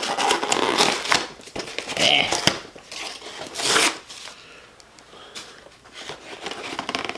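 Packaging of a Pokémon deluxe pin collection box being handled and opened: rustling and crinkling in a few separate bursts, with some sharp clicks and taps.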